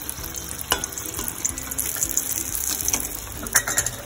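Spring rolls deep-frying in hot oil: a steady crackling sizzle with a few sharper pops, two of them near the start and near the end.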